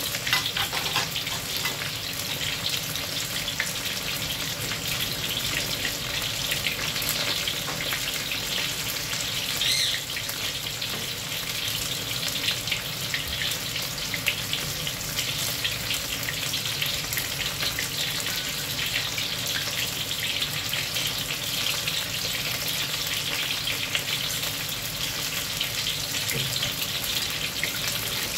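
Starch-coated pork rib pieces deep-frying in hot oil in a wok: a steady sizzle full of fine crackles, with a brief louder flare about ten seconds in.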